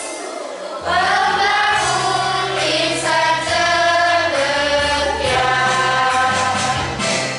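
Children's choir singing a song together, the voices coming back in strongly about a second in after a short lull.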